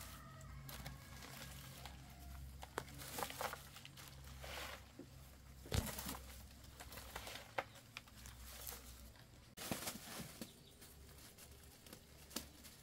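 Soft rustling and scattered light clicks of hands sorting and gathering a bundle of fern shoots in a woven basket.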